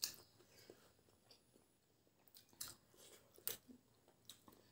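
Near silence broken by a few faint, short mouth sounds of people chewing boiled eggs, the clearest about two and a half and three and a half seconds in.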